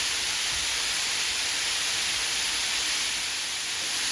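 Flour-coated chicken pieces deep-frying in hot grease, a steady sizzle.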